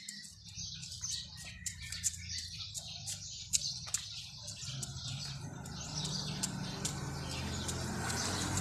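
Outdoor ambience with birds chirping and scattered small high clicks, over a low steady hum that grows louder in the second half.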